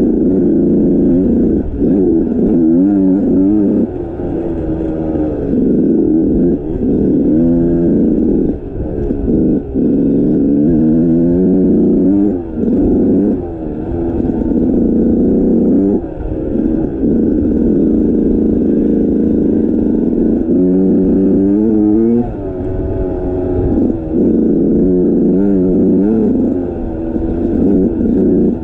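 Dirt bike engine under way, its revs climbing and falling every second or two as the throttle opens and closes, with short dips between.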